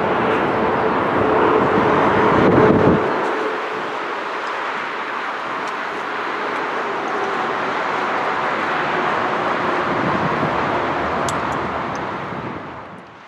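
Jet engines of a landing Boeing 747-8 (four GEnx turbofans), a loud roar with a low rumble and a steady whine under wind on the microphone. The low rumble drops away abruptly about three seconds in, leaving a steadier rush that fades near the end.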